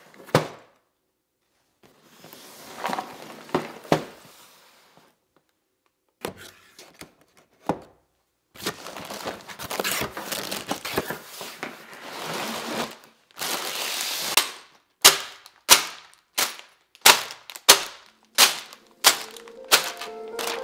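A cardboard Lego box being handled and opened, then plastic bags of bricks crinkling as they are pulled out. In the last few seconds the bags of bricks are set down one after another on the table, about two knocks a second. Music starts near the end.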